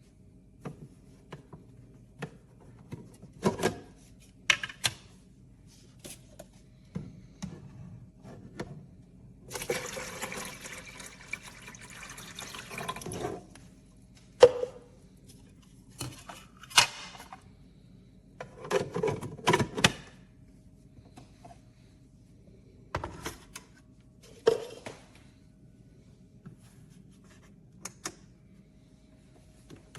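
Water being poured for about four seconds, among scattered clicks and knocks of plastic parts being handled.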